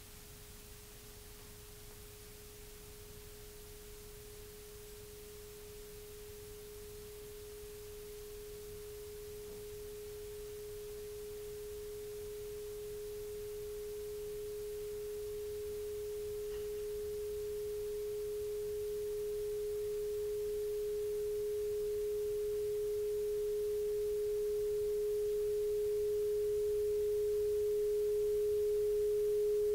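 Electronic drone: a single pure, steady tone at one pitch, slowly swelling louder.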